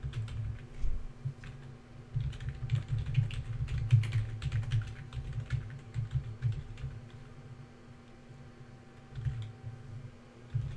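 Typing on a computer keyboard: quick runs of keystrokes in the first half, thinning to scattered keystrokes later.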